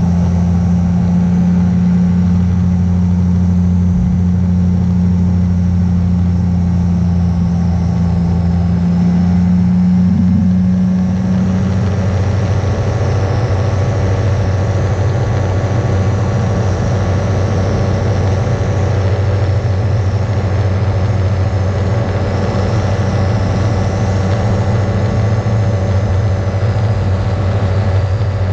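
Beaver RX 550 ultralight's two-stroke engine and pusher propeller running steadily in flight. About twelve seconds in, the tone changes slightly and the level drops a little, then it runs on evenly.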